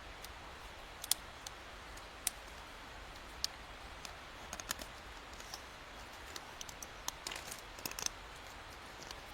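Scattered small sharp clicks and snaps, irregular and spaced up to a second or so apart, over a faint steady background, with a short cluster of them about two-thirds of the way through.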